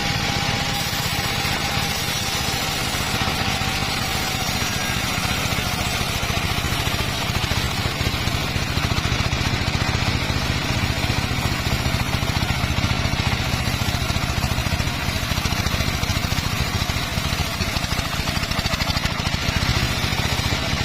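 Sawmill circular saw running steadily with a low engine-like hum, getting somewhat louder about a third of the way in.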